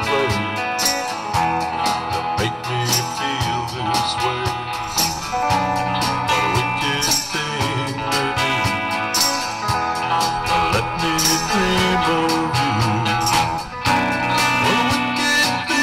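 Background music: a guitar-led blues-rock song with a steady drum beat.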